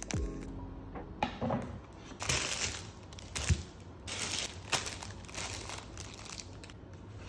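Plastic food packaging crinkling in irregular bursts as wrapped and bagged groceries are handled.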